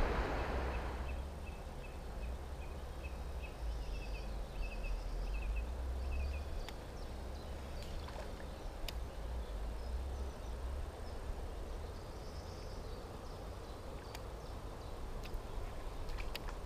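Quiet waterside ambience: a low rumble under a run of high chirps, about four a second, in the first few seconds, with a few faint clicks.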